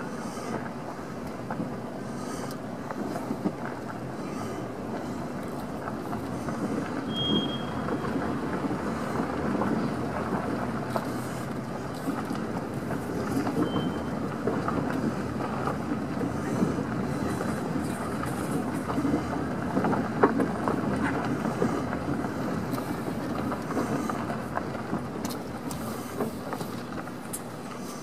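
A vehicle rolling slowly along a gravel drive, heard from inside the cabin: a steady rumble of tyres on loose gravel, with many small crunches and clicks of stones.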